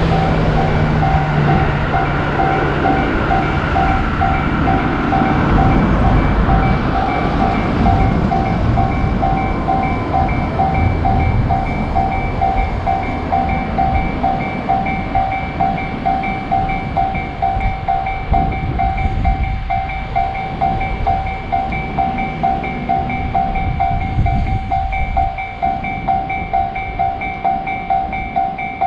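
Japanese level-crossing warning bell ringing in a steady repeating ding, while an electric commuter train passes over the crossing with a low rumble. The rumble weakens through the second half, leaving the bell ringing on.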